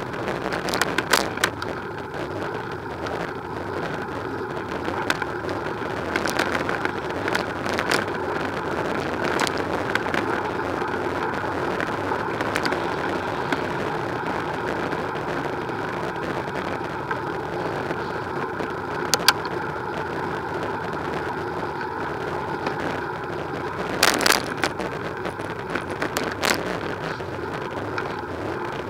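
Steady rush of tyre and wind noise from a bicycle-mounted camera riding along a street, with scattered clicks and rattles and a louder patch of clatter near the end.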